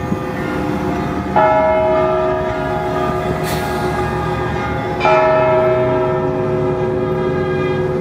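Russian Orthodox cathedral bells ringing. A bell is struck about a second and a half in and again about five seconds in, and each stroke rings on over the lingering tones of the other bells.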